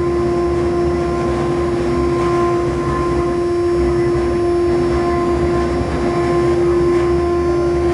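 Spindle of an Acctek AKS1212 CNC router running with a steady, unchanging whine as its bit engraves a two-colour engraving board, with the rougher noise of the cut underneath.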